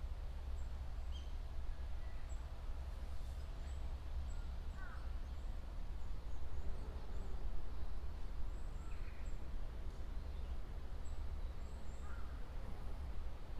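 Beech forest ambience: faint, scattered birdsong chirps and short calls over a steady low rumble.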